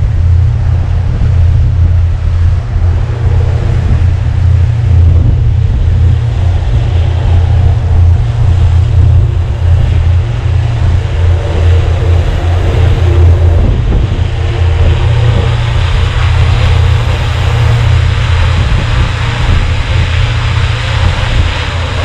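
Strong gusty wind buffeting a camera microphone: a loud, unsteady low rumble. A rushing hiss grows stronger about halfway through.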